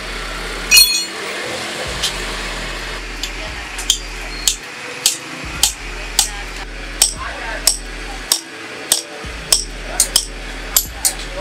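Repeated sharp knocks, about one and a half a second in the second half, over a steady low hum. A single loud, ringing metallic clink comes about a second in.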